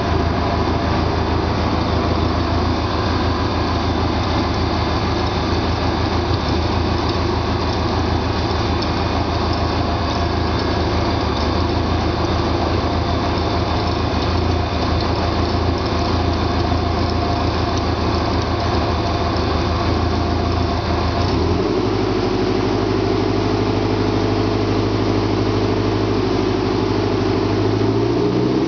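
Subaru engine of a Rotorway Scorpion helicopter running steadily on a ground test run, turning the rotor slowly. Its note changes about 21 seconds in and shifts upward again near the end.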